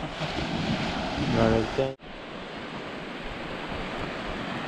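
Steady wash of surf on a beach, with wind on the microphone. A short bit of a man's voice comes in the first two seconds, and the sound briefly drops out about two seconds in.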